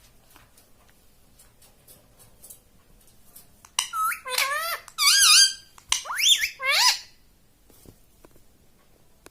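Ring-necked parrot calling: a quick run of about four loud, high calls that swoop up and down in pitch, starting about four seconds in and lasting about three seconds.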